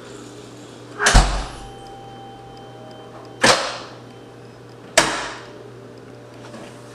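Three heavy bangs on a door, each ringing off briefly in a small room, the second and third closer together than the first two.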